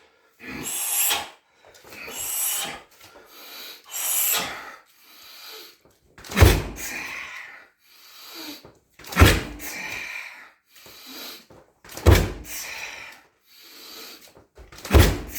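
Roundhouse kicks landing on a 60 kg heavy bag: four deep thuds about three seconds apart, starting about six seconds in. Sharp hissing exhalations come before and between the kicks.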